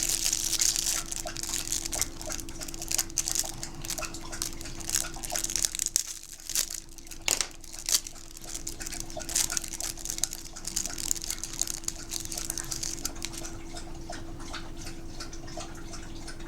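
Light, irregular clicks, scratches and crinkling as small plastic camera parts and the screen are handled, over a steady low hum.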